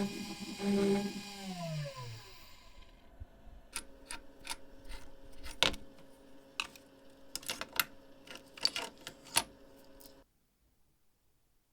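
An electric motor, likely a small power tool, is switched off and spins down, its pitch falling away. Then a run of sharp metallic clicks and clinks from small metal parts being handled, over a faint steady hum, stopping suddenly near the end.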